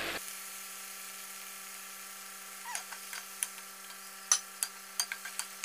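Plastic spatula knocking and scraping against a non-stick pan while stirring, starting about two and a half seconds in as a dozen or so sharp clicks, the loudest about four seconds in. A steady electrical hum of several tones runs underneath.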